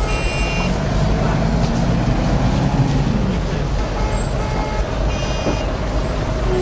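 City street traffic noise: a steady rumble of vehicles, with a heavy vehicle's engine rising and then falling in pitch between about one and three seconds in, and brief high squeals near the start and again about four seconds in.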